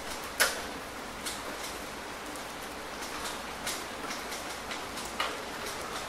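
Steady rain falling, a continuous hiss with single drops striking close by now and then. The loudest strike comes about half a second in, and another sharp one near the end.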